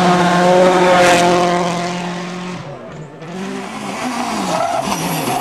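Rally car engine at high revs holding a steady note, then lifting off about two and a half seconds in and dropping away briefly, before revving up and down again with a wavering pitch.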